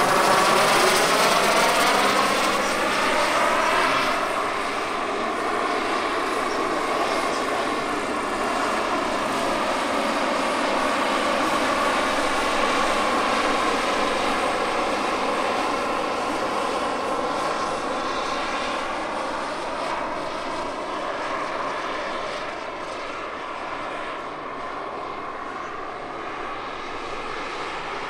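Turbine-powered large-scale RC model helicopters, Bell JetRanger and Bell 429, flying overhead together: a continuous turbine whine mixed with rotor sound. It is loudest in the first few seconds, with a sweeping pitch as one passes close, then slowly fades as they move away.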